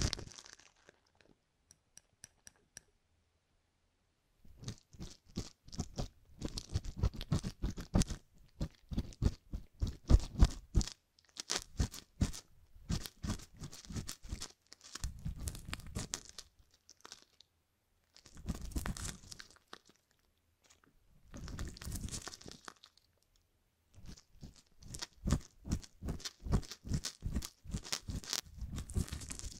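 Thin metal ear hook scraping inside the canal of a silicone ear-shaped microphone, in bursts of rapid crackling scratches a few seconds long with short pauses between them. This is the sound of picking hardened material out of the canal.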